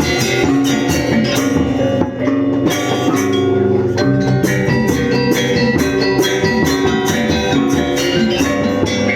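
Music: struck, ringing pitched percussion over drums, with regular strikes.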